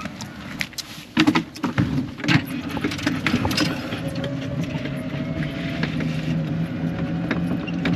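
Golf cart driving, a steady hum with a faint, slowly rising whine, after a few knocks and clatters in the first couple of seconds.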